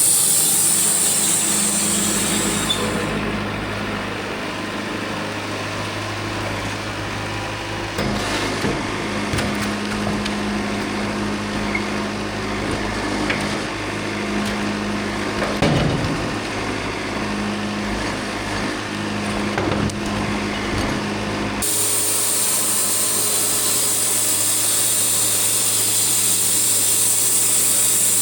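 Portable band sawmill running with a steady engine hum while the blade saws through a log, with scattered knocks of wood and a higher tone that comes and goes. The sound changes abruptly twice, about three seconds in and near the end.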